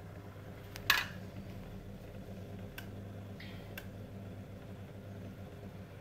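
Neff dishwasher drain pump running with a steady hum as it pumps out at the start of a cycle. A sharp click comes about a second in, and two faint ticks follow later.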